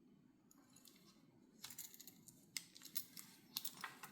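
Swiss Army knife tools being handled: faint small metal clicks of tools moving against the knife's backsprings and liners, starting about halfway in and coming more often, and a little louder, near the end.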